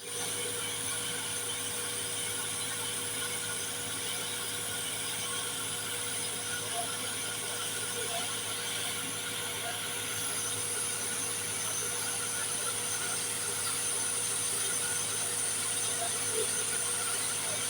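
Water-well drilling rig machinery running steadily, a constant mechanical drone with a steady hum and a high whine.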